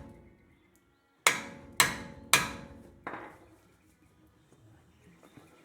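A hammer drives a pickle fork (tie rod separator) in to pop an outer tie rod end loose. There are three sharp metal-on-metal blows about half a second apart, each ringing briefly, and a lighter fourth blow about a second later.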